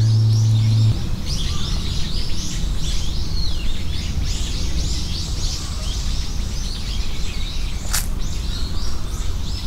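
Many small birds chirping and twittering, with short calls overlapping densely throughout, over a low outdoor background rumble. A loud steady low hum cuts off about a second in, and there is one sharp click near the end.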